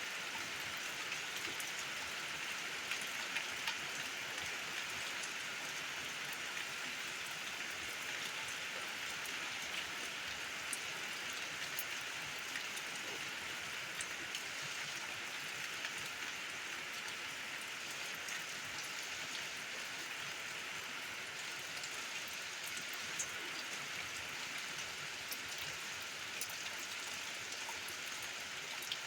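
Steady rain falling, with scattered individual drops ticking a little louder above the even hiss.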